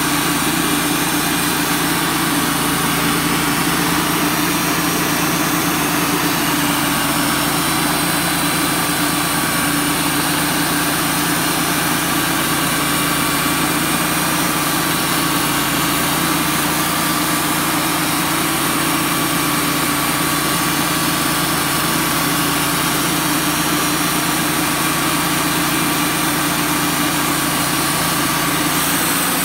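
Wood-Mizer LT35 portable band sawmill running steadily under load while its band blade saws a wide board off a log: an even, unbroken machine drone with several held tones.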